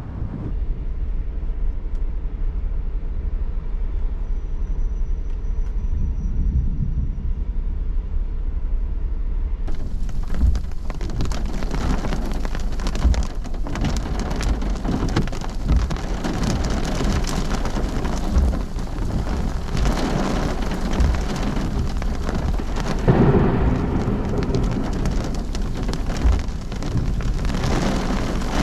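A severe thunderstorm: wind rumbling on the microphone at first, then about ten seconds in, heavy rain comes in abruptly as a dense, steady hiss and patter that lasts to the end, with a louder gust a little past twenty seconds.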